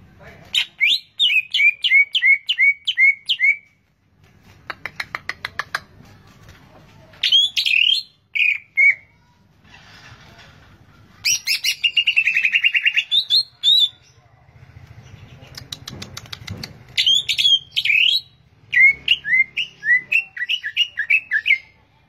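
Caged green leafbird (cucak ijo) singing in phrases with short pauses between them. The phrases are runs of about eight quick downslurred whistled notes, a fast rattle, and a buzzy trill. A run of downslurred notes returns near the end.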